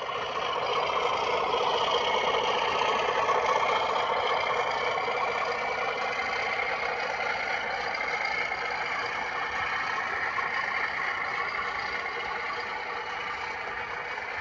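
Model diesel locomotive running on a layout, its sound decoder playing diesel engine noise through a small onboard speaker together with its running noise; steady throughout, with little deep bass.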